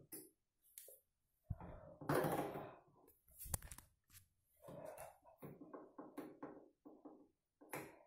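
Front-loading washing machine drum tumbling a wet load: water sloshing and laundry dropping with soft, irregular thuds, loudest about two seconds in.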